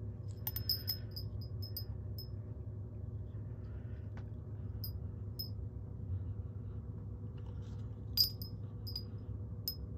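Small metal wind-chime tubes and acrylic diamond-painting pendants clinking together as the chime is handled: a quick run of light, high tinkles in the first couple of seconds, then a few single clinks, the loudest about eight seconds in. A steady low hum sits underneath.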